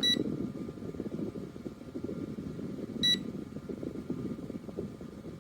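OUTTPLY battery-powered camping fan running with a steady rush of air, and two short electronic beeps about three seconds apart as its speed is stepped up.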